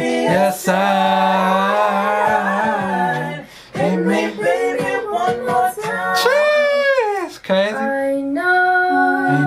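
A young woman singing a cappella, holding long notes, with a high vocal run that climbs and falls about six seconds in. Near the end a different singer's clip takes over with steady held notes.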